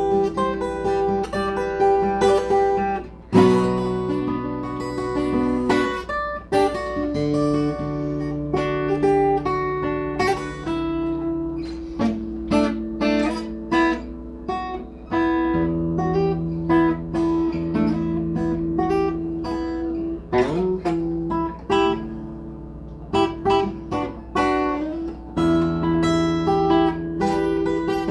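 Acoustic guitar played solo, single notes picked over held bass notes, with a few sliding notes.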